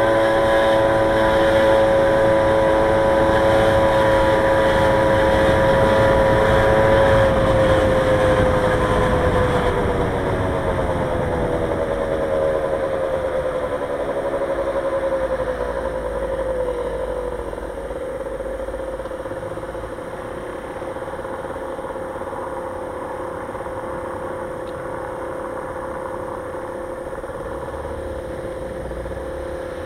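A motor vehicle running at a steady speed, with a droning engine whine and road and wind rush. About a third of the way in, the whine falls in pitch and the rush dies away as the vehicle slows to a stop. A quieter steady hum stays at rest.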